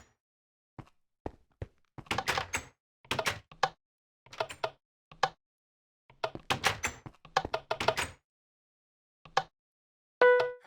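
Irregular knocks and clunks in short clusters. Near the end a fire alarm sounder starts with a loud, steady horn note.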